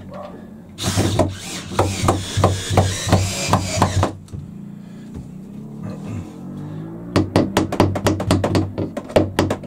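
DeWalt cordless drill driving a screw into a plastic fix-it block on a timber frame for about three seconds. A few seconds later comes a quick run of light hammer taps on the block.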